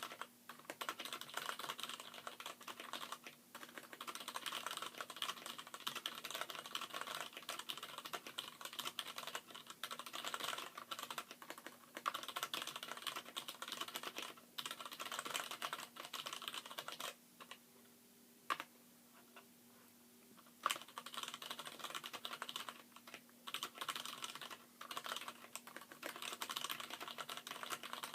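Fast typing on a Poker X mechanical keyboard with hybrid switches: Gateron Brown stems and springs in Cherry MX Black housings on the letter keys. The keystrokes come as a rapid, continuous run of clacks that breaks off for a few seconds past the middle, with only a single keystroke in the gap, then picks up again.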